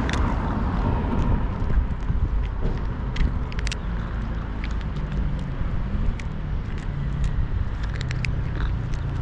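A cat eating food, with scattered small crunching clicks of chewing, over a steady low rumble.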